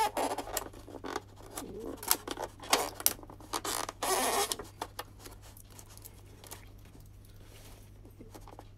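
Thin clear plastic clamshell takeout container being handled and pried open: irregular crackling and crinkling of the plastic, busiest in the first half and fading to near quiet after about four and a half seconds.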